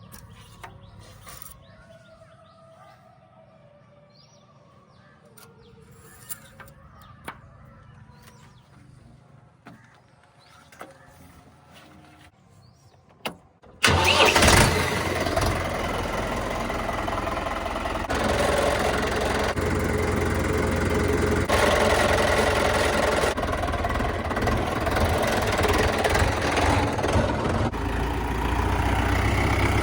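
Quiet at first with a few faint clicks, then about halfway through a heavy machine's diesel engine comes in suddenly and loudly and keeps running steadily, its revs rising and falling a little.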